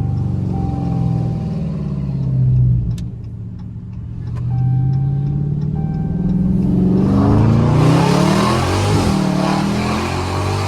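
Dodge Charger Scat Pack's 6.4-litre 392 Hemi V8 through catless mid pipes, revving under acceleration. It climbs and drops back about two seconds in, then makes a longer pull from about four seconds that turns into a loud rushing roar from about seven seconds on.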